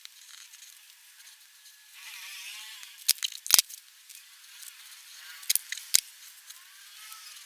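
Pigment pen scratching on paper, with a few sharp clicks about three seconds in and again around five and a half to six seconds.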